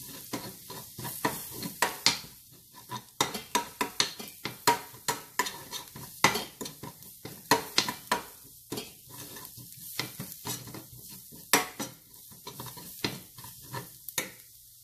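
Metal spoon scraping and clinking against a stainless steel frying pan as shallots and powdered spices are stirred in hot oil, with a faint sizzle underneath. The clinks come irregularly, several a second, and stop shortly before the end.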